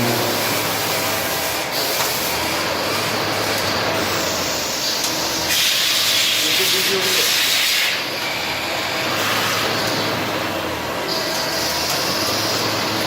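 Machine tool cutting metal: a continuous harsh scraping and grinding noise that changes character every second or two.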